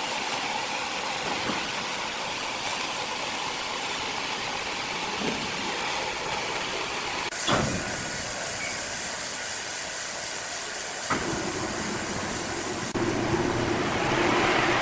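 Sawmill machinery running: a steady noisy rush with a couple of sharp knocks, changing abruptly about seven, eleven and thirteen seconds in.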